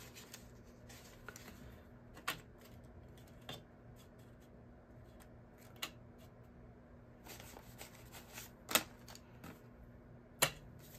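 Paper banknotes rustling and flicking as they are handled. A few sharp crisp snaps are scattered through, and the loudest come in the last few seconds.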